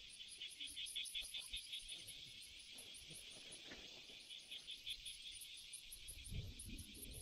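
Insects chirping in a steady run of rapid, evenly spaced pulses, with a low rumble coming in near the end.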